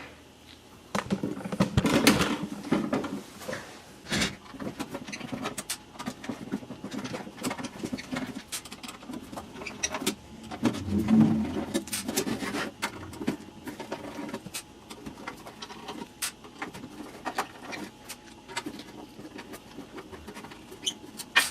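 Screws being taken out of a soldering station's case with a screwdriver: a run of small irregular clicks and ticks, with heavier scraping and handling of the case about two seconds in and again around eleven seconds.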